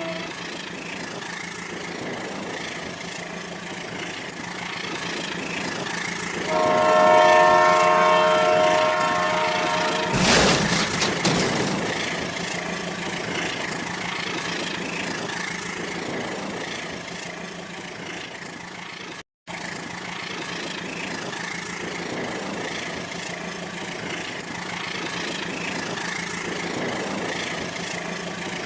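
Rail King battery-powered toy train running with a steady motor hum and rattle. It sounds its electronic horn for about three seconds, starting around a quarter of the way in, followed by a short sharp clatter.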